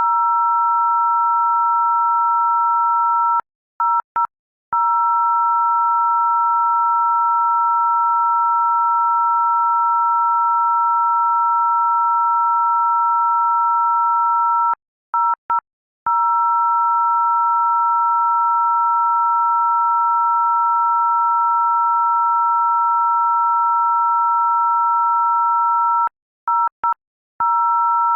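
A loud, steady electronic two-note tone, two pure pitches sounding together like a dial tone. It breaks off in a quick stutter of short gaps three times, about every eleven seconds.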